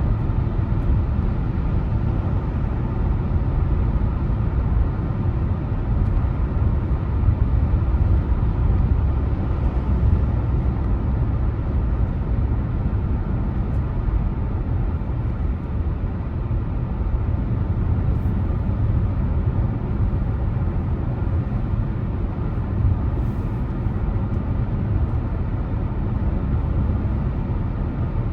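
Steady low rumble of a car driving along, engine and tyre road noise with no sudden changes.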